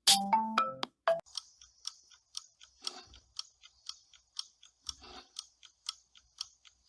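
A quick run of struck, ringing pitched notes, like tapping tuned everyday objects. After about a second it gives way to a steady series of sharp clicks, about two a second, over a faint high hiss, with a few duller knocks among them.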